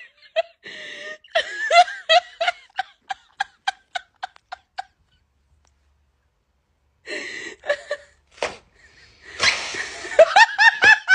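A person laughing hard in a run of quick, high-pitched 'ha-ha' pulses that fade away, a pause of about two seconds, then another fit of laughter that breaks out with a loud breathy burst near the end.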